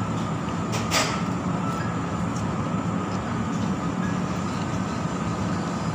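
Steady low mechanical drone, like a kitchen machine or extractor fan running, with one short noisy burst about a second in from the eating at the bowl.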